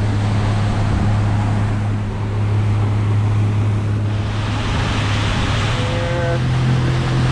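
Pontoon boat's motor running steadily under way, a constant low hum whose pitch steps up slightly about six seconds in. A rushing hiss of water and wind swells from about four seconds in.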